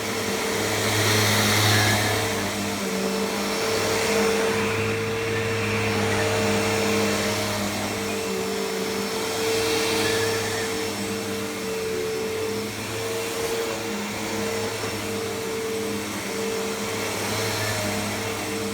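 Hoover Elite upright vacuum cleaner running, a steady motor hum that swells and eases every few seconds.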